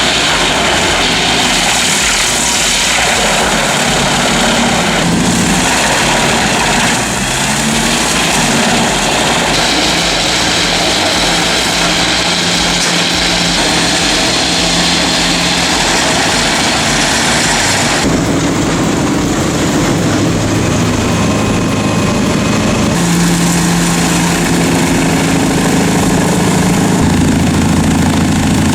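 Large crane-fed wood chipper running loudly under load: a heavy engine note beneath a dense grinding rush of wood being chipped. The sound shifts abruptly about 18 seconds in and again about 23 seconds in.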